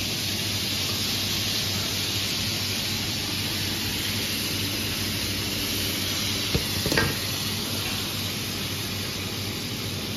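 Marinated fish shallow-frying in a pan of hot oil, a steady sizzle throughout. A couple of short metal clinks from the tongs come about two-thirds of the way through.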